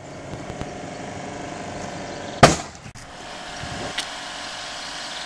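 A car's passenger airbag firing: one sharp, very loud bang about two and a half seconds in, over a steady engine hum.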